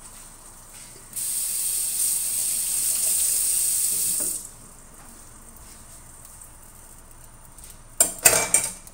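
Kitchen tap running for about three seconds, a steady hiss of water that starts and stops abruptly. Near the end comes a quick cluster of sharp knocks.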